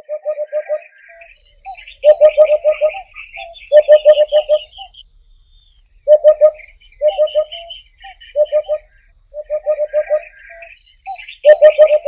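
Eurasian hoopoe calling its soft 'oop-oop-oop', low hoots in quick runs of two to four, repeated every second or two. Other small birds twitter higher up.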